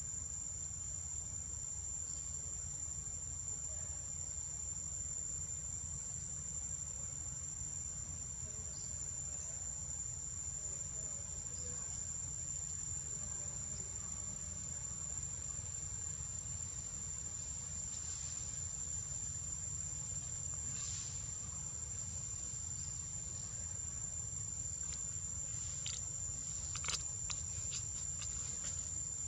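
Steady high-pitched insect chorus, a continuous shrill buzz with no break, over a low steady rumble. A few faint clicks sound near the end.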